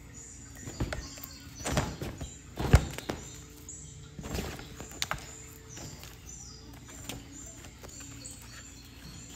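Nylon pop-up cat tunnel rustling and thumping as a cat scrambles and pounces inside it, several sharp knocks with the loudest a little under three seconds in. Soft background music runs underneath.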